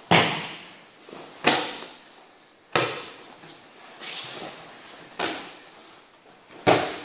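Aikido breakfalls: about six sharp slaps of bodies and hands hitting the mat as partners are thrown from kneeling, roughly one every second and a half. Each slap echoes briefly.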